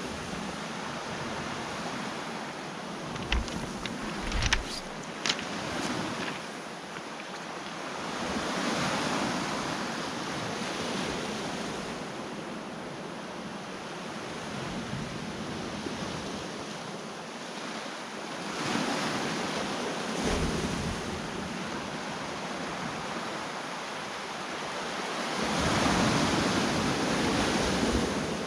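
Sea waves breaking on the shore, a steady wash of surf that swells and fades three times. A few sharp knocks come about three to five seconds in.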